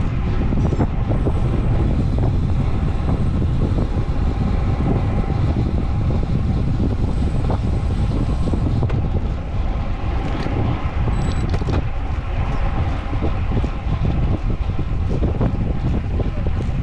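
Wind rushing over the microphone of a road cyclist descending at about 30 to 40 km/h: a steady, loud low rumble.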